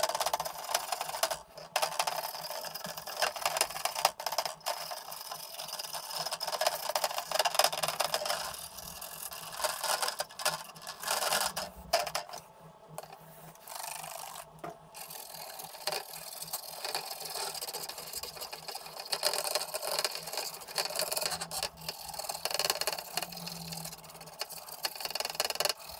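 Small stiff brush scrubbing an Amstrad CPC464 circuit board soaked in isopropyl alcohol: a scratchy rasping of bristles in quick, uneven strokes with brief pauses.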